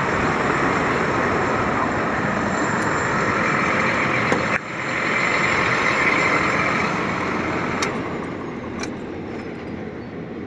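Hino Ranger SG 280 TH's J08E-WD six-cylinder common-rail diesel running steadily, then dying away over the last few seconds as it is switched off.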